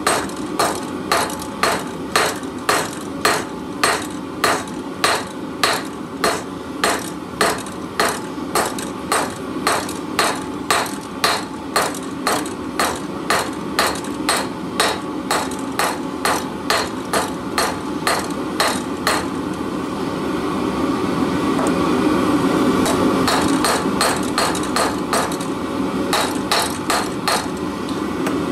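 Hand hammer striking the hot tip of a steel bar on an anvil, forging it out flat into a leaf shape, with steady blows a little under two a second. About two-thirds of the way through the blows stop and a steady hum rises, with a few lighter strikes near the end.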